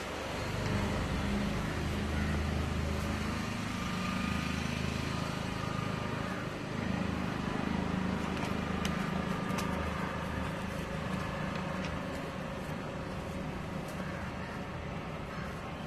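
Street traffic below: a motor vehicle engine running with a steady low rumble that comes up about half a second in and fades over the last few seconds.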